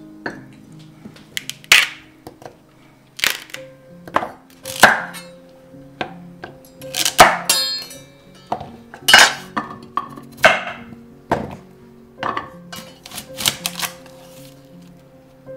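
Chef's knife cutting through crisp vegetables, celery stalks and an onion, on a wooden cutting board: a sharp crunch and knock on the board every second or two, irregularly spaced. Faint background music plays underneath.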